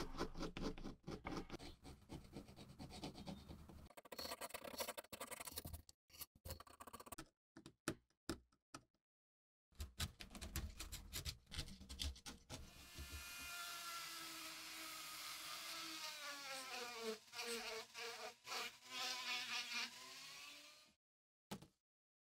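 Knife point scratching and picking at worn leather on an old sheath, in short clips broken by abrupt cuts to silence. Later a steady hissing scrape with a wavering whine as the blade works at a rusty metal snap fastener.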